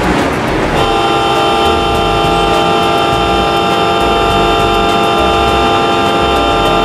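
Station platform departure signal: a steady electronic tone of several pitches at once, starting just under a second in and held for about six seconds, announcing that the waiting train is about to leave.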